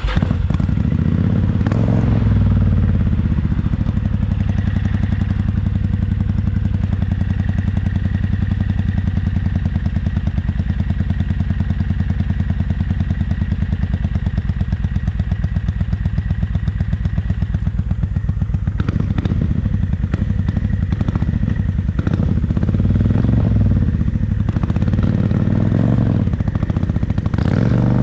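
Motorcycle engine catching at the very start and then running at a loud, steady idle with a rapid, even exhaust pulse. In the second half the engine note rises and falls a few times as the throttle is blipped.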